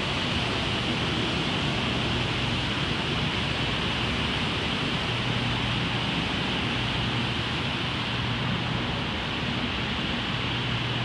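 Steady ambience inside an open concrete parking garage: an unbroken hiss with a low, constant hum beneath it and no distinct events.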